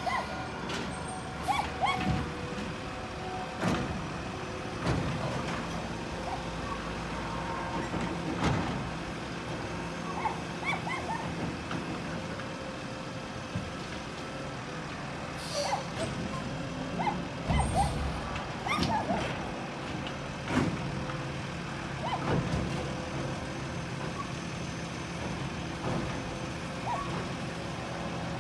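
Garbage truck engine running steadily, with repeated short clanks and knocks throughout.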